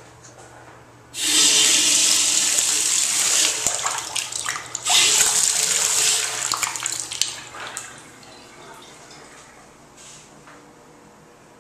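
Sink faucet turned on about a second in, water running hard and splashing into the porcelain basin. The water dips briefly near the middle, then stops about two-thirds of the way through.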